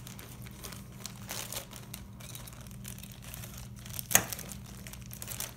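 Clear plastic zip-top bags crinkling and rustling as they are handled, with one sharp click about four seconds in.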